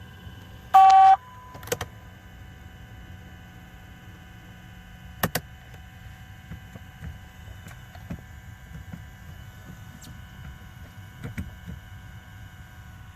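A car's dashboard chime sounding once, a short electronic beep about a second in, followed by a few scattered clicks.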